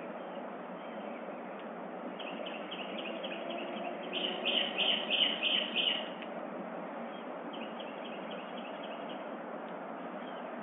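Small bird chirping in a quick series of short repeated notes, loudest about four to six seconds in and fainter near the end, over a steady background hiss.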